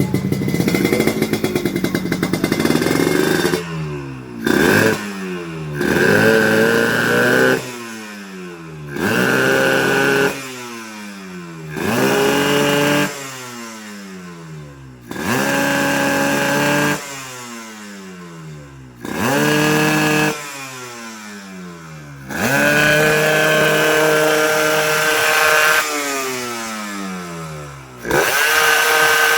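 Yamaha RX-King's two-stroke single-cylinder engine revved in a series of sharp throttle blips about every three seconds, each held for a second or so before the revs fall back toward idle. Near the end, one rev is held for about three seconds.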